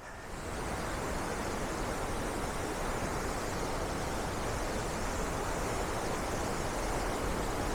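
A waterfall in heavy flood: a steady, dense rush of falling water that grows louder about a third of a second in and then holds.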